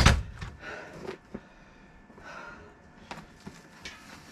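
A heavy thump as the demolition hammer is set down on the dirt, followed by scattered small cracks and rustling as tree roots and soil are pulled from the stump hole by hand.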